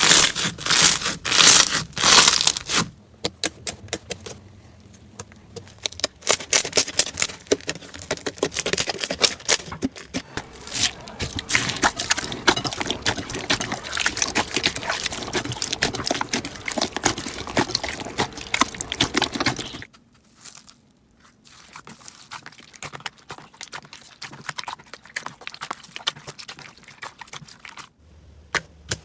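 Slime being squeezed, poked and stretched by hand: a dense run of wet crackles, clicks and small pops. Several short clips follow one another. The loudest popping comes in the first few seconds, and the sound grows sparser and quieter in the last third.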